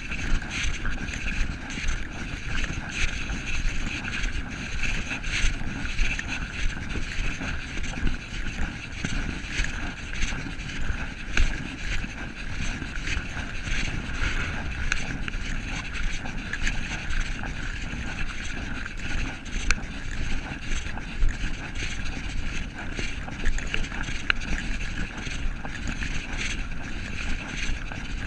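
Wind rumble on the microphone and steady movement noise from a camera carried along a trail, with many small scattered clicks and crunches.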